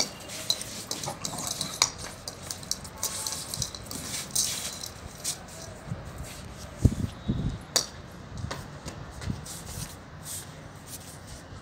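Scattered light clicks and taps on a tiled floor from a boy and a Labrador retriever playing with a tennis ball, with a few low thumps about seven seconds in and a stretch of hiss near the start.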